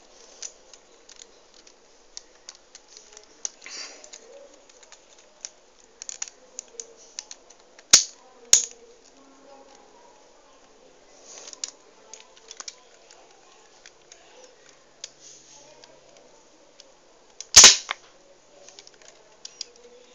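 Plastic clicks and rattles of a Lego toy pistol being handled and worked. There are three loud, sharp snaps: two about 8 seconds in, half a second apart, and one near the end, the loudest.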